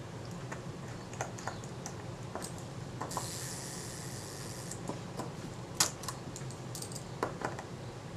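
Small, irregular metal clicks and taps of a fine tool and parts inside a Synchro-Compur leaf shutter as the self-timer mechanism is seated, with one sharper click about six seconds in. A brief hiss sounds for about a second and a half around the three-second mark.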